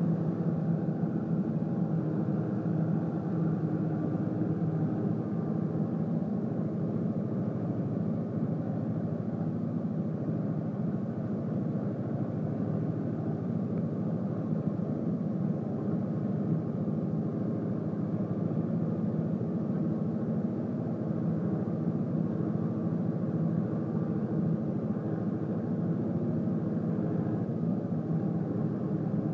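Farm tractor's diesel engine running under steady load as it pulls a seven-shank subsoiler deep through hard ground, a constant low drone with no change in pace.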